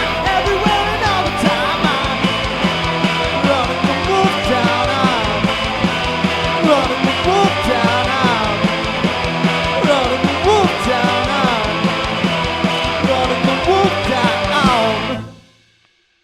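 Rock song's closing section: full band with a melody line bending in pitch over a steady beat, stopping sharply about fifteen seconds in.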